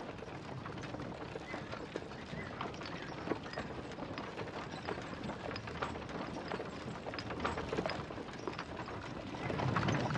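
Horses' hooves clip-clopping over a gravel track with a wooden cart rattling along, growing louder and heavier near the end.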